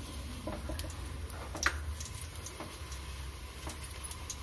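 Sesame oil heating on a low flame in a large aluminium pot, giving scattered small crackles and pops, with one sharper pop about one and a half seconds in. A steady low hum runs underneath.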